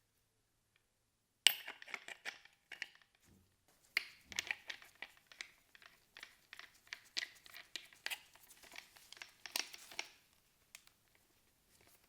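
Irregular light clicks and crinkles, like something being handled, beginning about a second and a half in and thinning out near the end.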